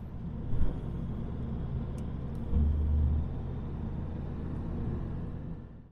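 Road noise inside a moving car's cabin: a steady low rumble of engine and tyres on a wet road, with a brief louder low rumble a little over halfway through.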